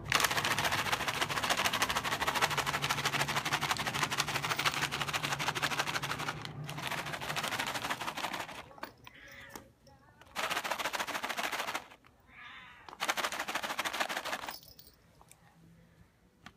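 A plastic pet-food bag crinkling and rattling rapidly and loudly in a long stretch. Two shorter bursts follow, at about ten and thirteen seconds. In the pauses a cat gives faint meows.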